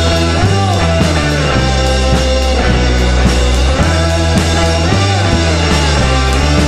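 Rock band playing live: drum kit keeping a steady beat under an electric bass line, a strummed acoustic-electric guitar and a hollow-body electric guitar, in an instrumental stretch without vocals.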